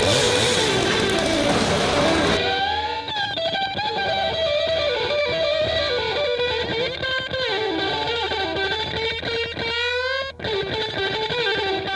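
Background rock music led by electric guitar. About two and a half seconds in it changes to a guitar line with notes bending up and down.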